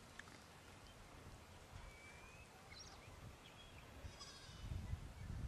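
Near-quiet field ambience with a few faint goat bleats from the flock, and a low rumble building near the end.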